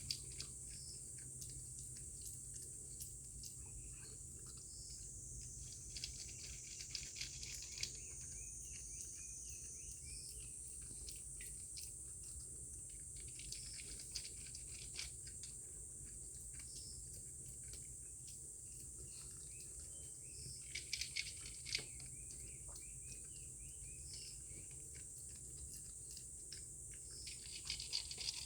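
Steady high-pitched insect chorus, with a few short clusters of small clicks and taps now and then.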